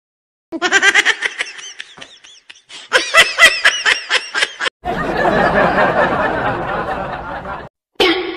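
Laughter sound effects: two runs of rapid, high-pitched laughing, then a longer, denser stretch of laughter about five seconds in, each clip starting and stopping abruptly.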